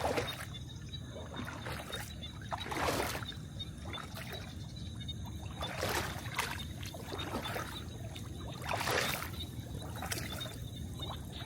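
Water splashing and dripping in separate surges, about every three seconds, as a fishing net is hauled up out of the water, over a steady low rumble.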